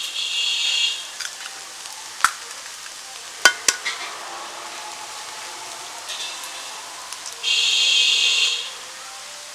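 Eggs being cracked into a small steel bowl: a few sharp taps of eggshell against the bowl, about 2 and 3.5 seconds in. A high buzzing hiss lasting about a second comes at the start and again near the end.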